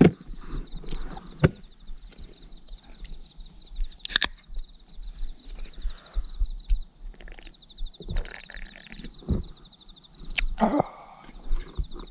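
A continuous high-pitched insect trill, with scattered sharp clicks and knocks of tableware being handled during a meal.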